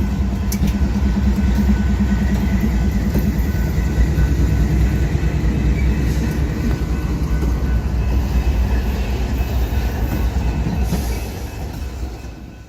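BNSF freight train rolling past, a loud, steady rumble of wheels and cars that fades away near the end.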